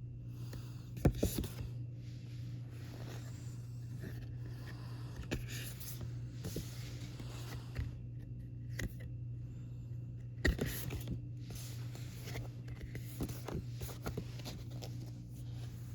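Hands handling a K-pop album's packaging and inserts: irregular rustling, scraping and small clicks of paper and card, with two sharper knocks, one about a second in and one about ten seconds in.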